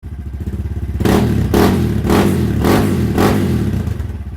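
Guerrero GXR250 motorcycle's single-cylinder four-stroke engine idling through a homemade exhaust, then blipped five times in quick succession, about two revs a second, before settling back to idle.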